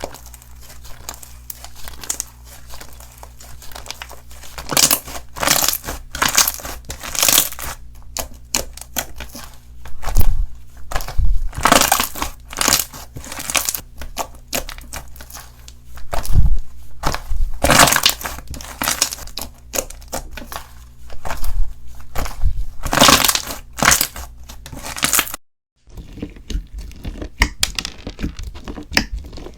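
Slime being squeezed and pressed by hand, giving irregular crackling and crunching with louder bursts every second or two. There is a brief cut to silence near the end, then a quieter crackling resumes.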